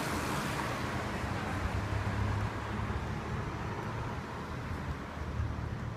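City street traffic: a passing car whose noise is loudest at first and fades away, over a steady low hum.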